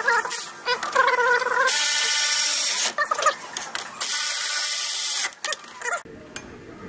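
Power tool running in two bursts of a little over a second each, a steady whirring whine, driving in the fan shroud's two 10 mm bolts.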